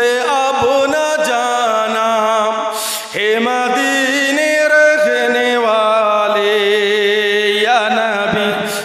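A man singing a devotional Urdu naat in long, wavering held notes, with a short break about three seconds in and another near the end.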